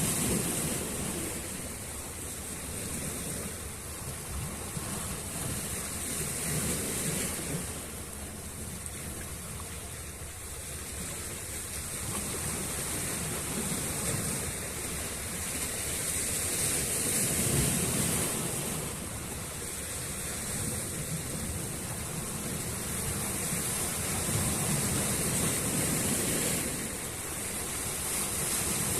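Sea waves breaking and washing up the shore in slow surges, the hiss of the wash swelling and fading every several seconds.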